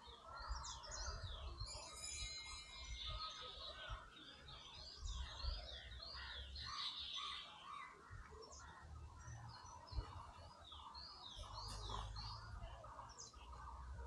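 Many small birds chirping and calling at once, a busy chorus of short, quickly repeated high notes, with a faint low rumble underneath.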